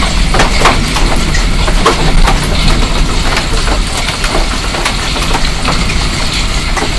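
Hailstorm: hailstones striking hard surfaces in irregular sharp cracks, many to the second, over a steady low rush of the storm.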